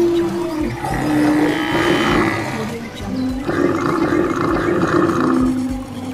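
Wild animal calls, several long held calls one after another.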